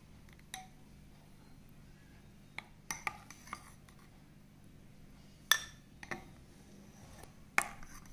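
A utensil clinking against a mixing bowl as melted butter is worked into pancake batter: scattered sharp clinks at irregular intervals, the loudest about five and a half seconds in.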